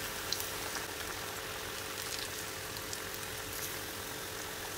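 Semolina-coated breadfruit slices deep-frying in hot oil in a kadai: a steady sizzle with a few small crackles scattered through it.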